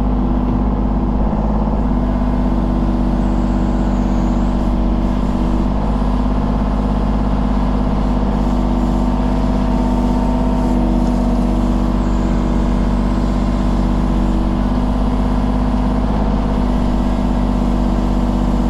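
Mini excavator's diesel engine running at a steady throttle while digging out the driveway base.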